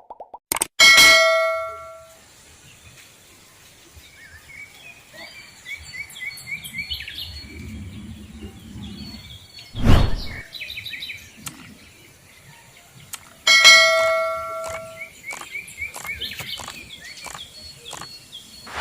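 Birds chirping, with a ringing bell-like ding twice, about a second in and again near the end, and one sharp knock about halfway through.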